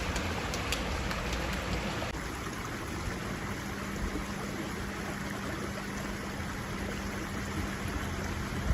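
Steady rushing background noise with a low, steady hum setting in about three and a half seconds in; near the end it starts to swell as an approaching JR Nambu Line train draws near.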